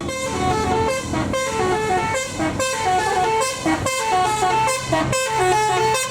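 Tour bus telolet horn, a multi-note musical air horn, playing a quick tune of short notes stepping up and down, in phrases broken by brief pauses.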